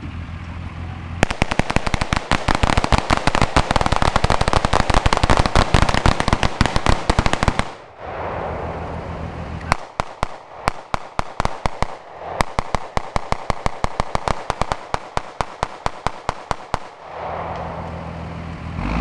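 Rapid gunfire, many shots in quick succession: a dense run for about six seconds, a pause of about two seconds, then a second, slightly sparser run of several shots a second for about seven seconds. A truck engine idles steadily underneath and in the gaps.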